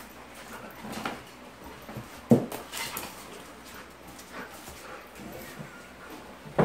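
Australian Shepherd dog making a few short sounds, the loudest a sharp one a little over two seconds in.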